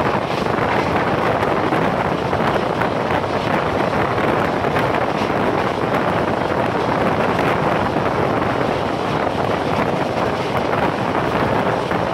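Wind rushing over the microphone held out of a moving passenger coach's window, over the steady rumble of the train running at speed on the rails.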